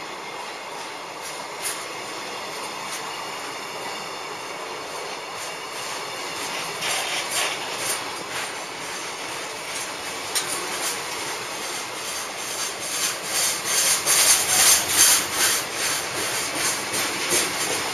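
JR Freight EF210 DC electric locomotive running past, followed by a long string of loaded container wagons rolling by close to the platform. The wheels clatter over rail joints, growing louder and denser about three-quarters of the way through.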